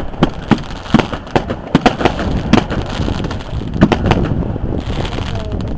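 Fireworks going off: aerial bursts and crackers in a rapid, irregular string of sharp bangs, about a dozen of them, over a steady noisy background.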